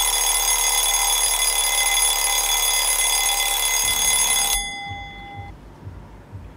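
Alarm clock ringing with a loud, steady ring that cuts off a little over four seconds in, the ring fading out over about a second afterwards.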